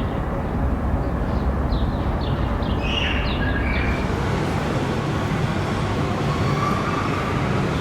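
Steady low rumble like a running vehicle, with a few faint short high squeaks around the middle.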